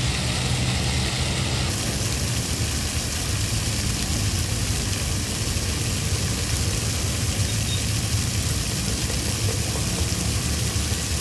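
Many water jets of an illuminated fountain splashing down into the pool: a steady rushing hiss with a low rumble underneath.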